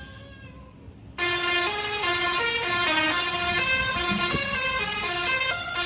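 Musical Tesla coils playing a buzzy melody with their sparks, one note after another. They are almost silent for the first second, then cut back in suddenly.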